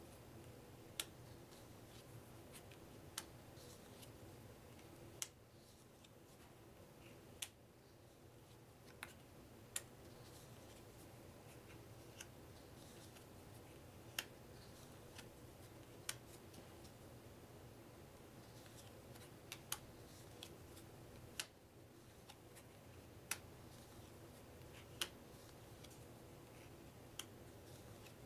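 Playing cards being set down one at a time on a table, a sharp click every second or two over a low steady hum.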